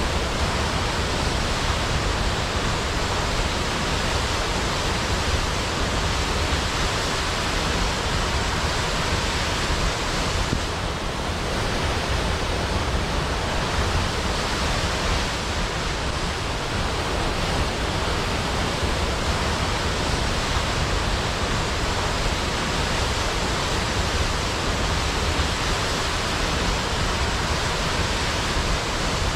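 Large waterfall crashing into a pool: a loud, steady rush of falling water with no breaks.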